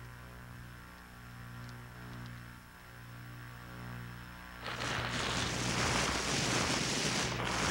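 Low, buzzing electric hum that swells and fades every second or so. About five seconds in, a loud hiss-like rush of noise cuts in over it.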